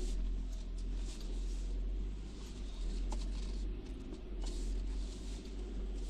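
Low, steady rumble of a small car's engine heard from inside the cabin as the car creeps into a tight parking space, with a few faint clicks.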